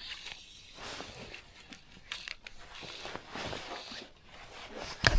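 Rustling and scraping handling noise with scattered small clicks, and a sharp knock near the end.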